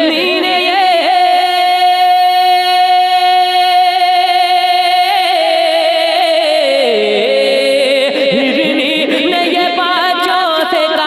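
A man singing a naat, holding one long high note for about four seconds, then sliding down to a lower pitch and carrying on with a winding, ornamented melody.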